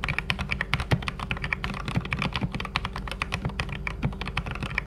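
Fast typing on a Keychron K8 mechanical keyboard fitted with hand-lubed Gateron Yellow linear switches: a rapid, steady stream of keystrokes. It is the after-lubing sound test, with the switches lubed with Krytox 205g0.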